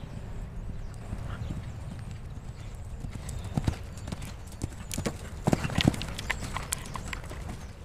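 Hoofbeats of a cantering horse on sand arena footing, a run of dull strikes that grow louder and closer about halfway through, over a steady low rumble.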